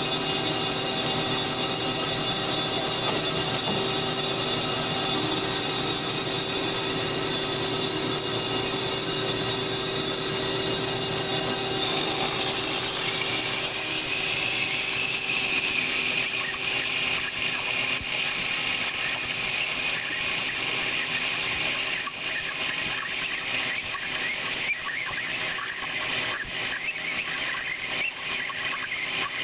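Cosen C-520NC bandsaw cutting a bar of 15-5 PH stainless steel, a steady machine hum with held tones. About a third of the way in a higher squealing tone joins, and fast irregular ticks from the blade grow through the second half.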